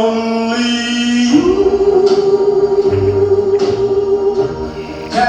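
Music with singing voices holding long notes; the sung pitch steps up about a second and a half in.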